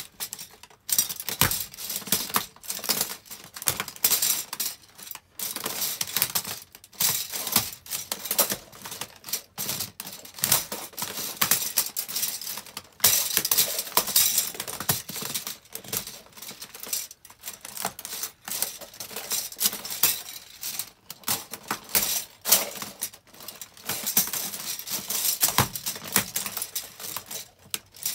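White disposable plastic spoons and forks cracking, snapping and clattering as feet in fuzzy socks stamp on and crush them, in dense bursts of sharp clicks with short pauses between steps.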